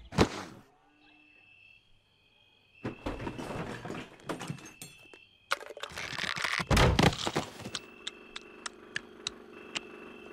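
A cartoon thump as a body flops down onto a bed, then loud noisy snoring breaths. Near the end a steady low hum with soft ticks several times a second.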